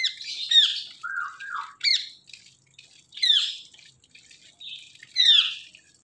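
Indian ringneck parakeets squawking: a string of harsh, shrill screeches, each sweeping sharply down in pitch, coming in quick clusters with short gaps between.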